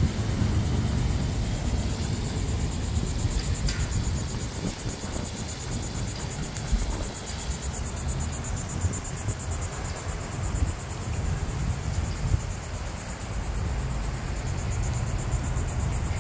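Outdoor ambience: a steady low rumble with a continuous high-pitched insect trill above it.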